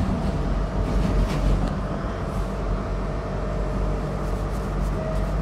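Metro train running, heard from inside the carriage: a steady low rumble of wheels on rails with a faint steady whine running through it.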